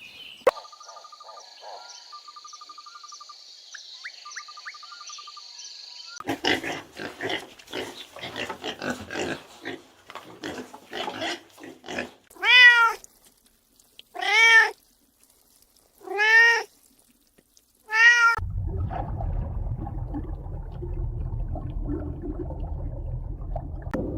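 A cat meowing four times, about two seconds apart, each meow a short call that rises and falls in pitch. Before the meows comes a run of quick, ragged sounds, and after them a low steady rumble.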